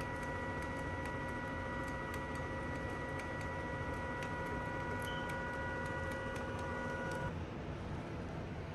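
Handheld thermal label maker printing: a steady motor whine with light ticking as the tape feeds through, cutting off about seven seconds in.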